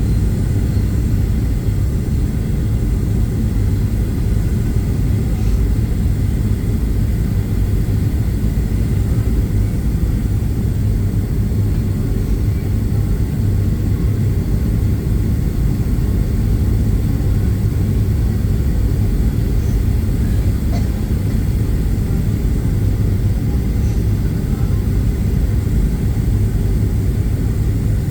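Steady low cabin rumble inside a Boeing 737-800 in flight on its way in to land: airflow and engine noise, even throughout, with no distinct events.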